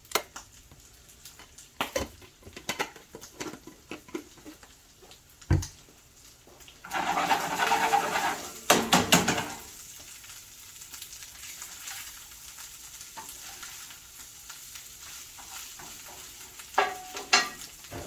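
Ground beef frying in a pan, with scattered clicks and knocks of kitchen utensils. About seven seconds in there is a loud burst of sizzling and stirring lasting about two seconds, which then settles to a steady low sizzle.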